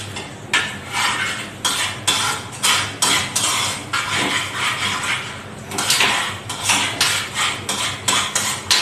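A utensil scraping and clinking against a pan in quick, irregular strokes as a sauce thickened with cornflour is stirred.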